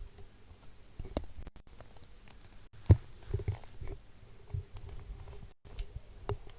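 Irregular soft knocks, low thumps and clicks picked up by a microphone, with a faint steady hum underneath; the loudest knock comes about three seconds in.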